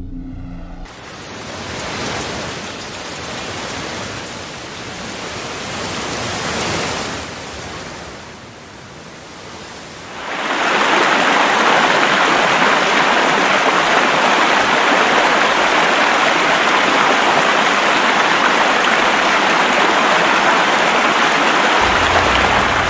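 Rushing floodwater: a noisy rush that swells and fades for several seconds, then turns into a louder, steady rush about ten seconds in.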